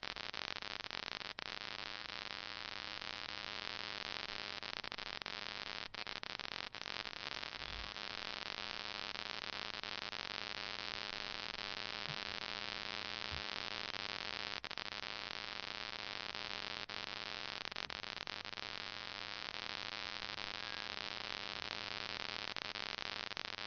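Steady static hiss with a low, even hum underneath: the recording's background noise, with nothing else sounding.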